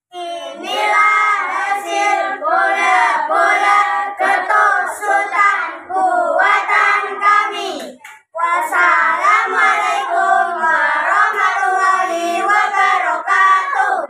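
A group of children singing together, in two long phrases with a short break about 8 seconds in.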